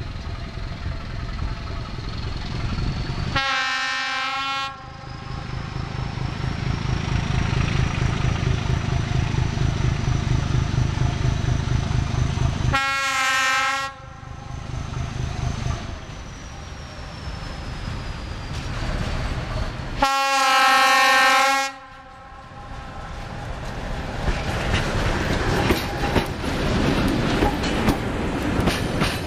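Diesel locomotive sounding its horn three times as it approaches, each blast a little over a second and the last the longest and loudest, with its engine running underneath. Near the end the freight wagons roll past, wheels clattering over the rails.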